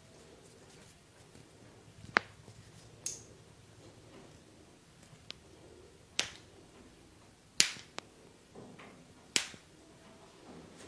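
Sharp snapping cracks from an Indian-style cracking massage, about seven irregularly spaced pops, the loudest about two seconds in and again around seven and nine seconds in.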